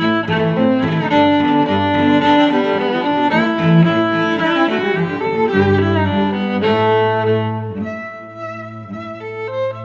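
Background music played on bowed strings, violin and cello, with sustained notes; it grows quieter about eight seconds in.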